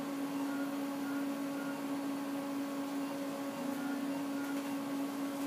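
Steady electrical hum of electrophysiology-lab equipment, a low tone with faint overtones, with faint short high beeps now and then.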